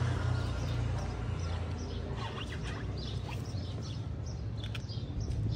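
Steady low outdoor rumble, with a few light knocks and rustles in the second half as a car seat is pushed into a hatchback's boot, and some short high chirps.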